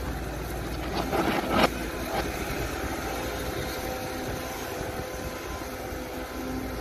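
Heavy machine's engine running steadily, with a few sharp knocks about a second and a half in.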